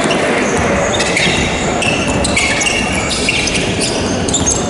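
Basketball shoes squeaking on a hardwood gym floor: many short, high squeaks at varying pitches as players run and cut, over a steady hall noise.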